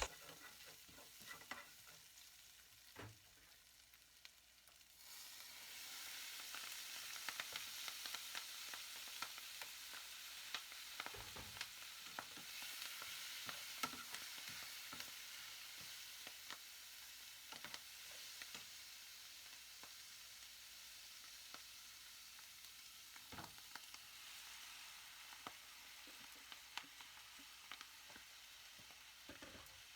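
Wide rice noodles, Chinese broccoli, chili and garlic sizzling in a hot pan while being stir-fried, with scattered scrapes and taps of the spatula. The sizzle grows louder about five seconds in.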